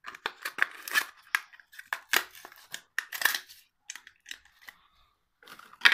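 Hot Wheels blister card being opened: irregular crackling, snapping and tearing of the plastic bubble and cardboard backing, pausing briefly near the end before a few more crackles.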